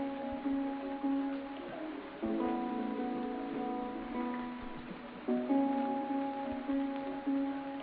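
Background music: soft plucked guitar playing held notes in phrases that start again about every three seconds.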